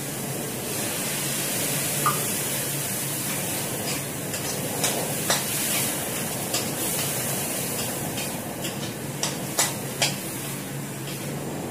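A spatula stirring pasta in a wok, knocking and scraping against the pan a dozen or so times, over a steady hiss of cooking on the gas stove.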